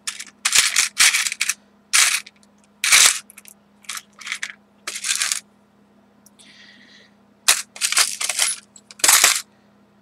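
Small craft embellishments clattering and rattling as a hand rummages through a storage bin: a string of short bursts, with a pause around the middle.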